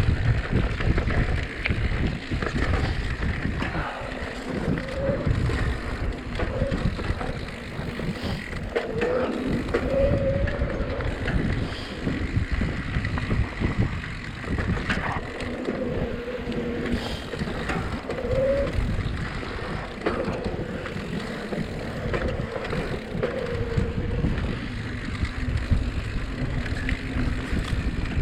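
Mountain bike rolling down a rough dirt trail: a steady rumble and rattle from tyres and frame over the ground, with wind buffeting the microphone. Short wavering tones come and go every second or two.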